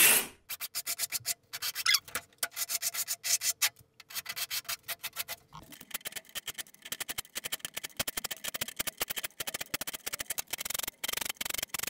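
Hand files rasping on a chainsaw chain clamped in a vise, in rapid short strokes. First a small triangular file, then, after about five and a half seconds, a round file in a file guide stroking across the cutting teeth.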